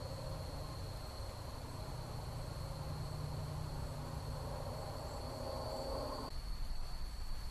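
Night insects trilling steadily at one high pitch, over the low hiss and rumble of a trail camera's microphone.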